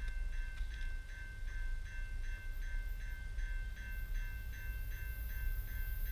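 Railway level-crossing warning bell ringing rapidly, about four strokes a second over a steady ringing tone, the signal that a train is approaching. Wind rumbles low on the microphone.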